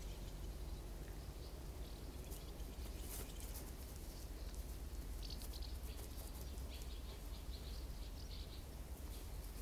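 Outdoor ambience: birds chirping faintly, with more chirps about halfway through, over a low steady rumble. A few brief scratchy clicks come about three seconds in.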